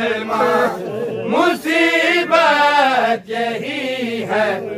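Men's voices chanting a noha, a Shia lament sung without instruments, in long, drawn-out melodic lines.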